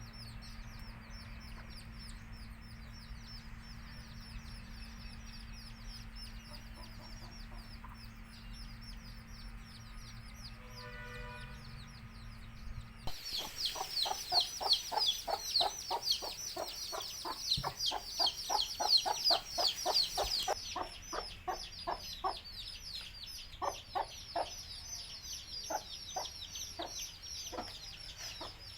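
Many baby chicks peeping continuously in high, down-slurred cheeps. About halfway through, a mother hen starts clucking rapidly over them, then her clucks thin out to a few scattered ones.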